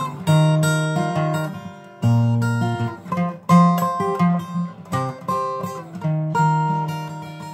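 Steel-string acoustic guitar strummed, chords struck every second or two and left to ring out and fade between strokes.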